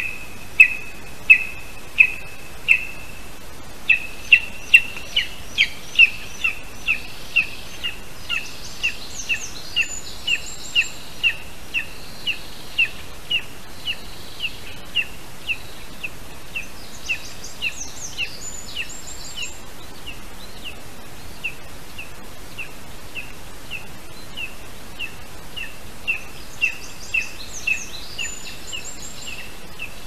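Lesser spotted eagle chick calling: a long, even series of short, high piping calls, about one and a half a second, loudest in the first few seconds and softer after. Songbirds sing briefly three times in the background.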